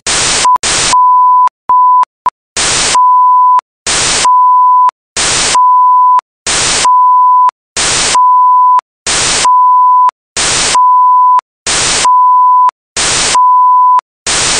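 Television static hiss alternating with a steady test-tone beep, the 'technical difficulties' sound effect. Each burst of hiss lasts about a third of a second and each beep under a second, repeating about every one and a half seconds after a choppier start.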